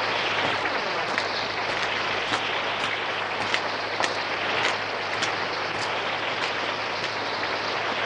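Heavy rain pouring steadily onto gravel: a dense, even hiss with scattered sharper drop sounds.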